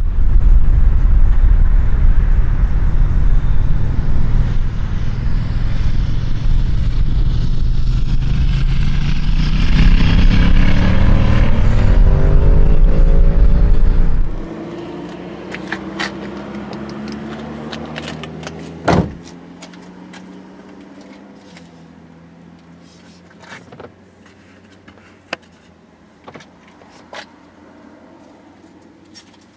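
Wind buffeting the microphone while a car passes along the road close by. Its engine and tyre noise swells and then slides down in pitch as it goes. About halfway the sound cuts abruptly to a much quieter scene, with a faint fading engine hum, scattered clicks and one sharp knock.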